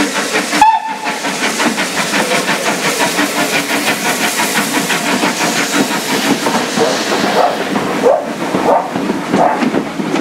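Southern Railway Lord Nelson class No. 850, a four-cylinder 4-6-0 steam locomotive, pulling away hard with a brief whistle toot about a second in, then rapid, even exhaust beats. After about six seconds the coaches rumble and clatter past.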